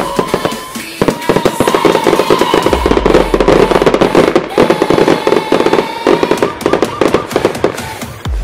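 Aerial fireworks going off in a dense, rapid barrage of bangs and crackles, with a short lull about a second in, over music.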